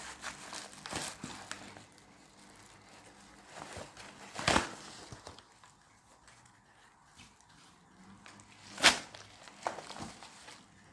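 Packaging being opened by hand, with irregular crinkling and rustling and two sharp clicks, about four and a half and nine seconds in.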